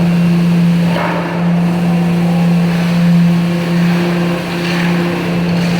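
Construction machinery on an underground concrete pour running steadily with a constant, loud low hum.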